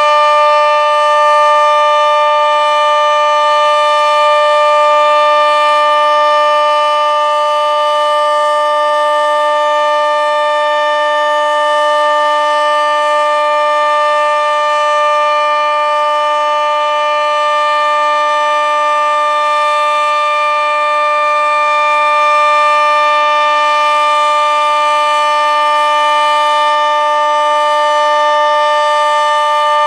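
Sentry 40V2T dual-tone outdoor warning siren sounding its steady alert: a loud, continuous chord held at one pitch, its level swelling and dipping slightly as the siren head rotates.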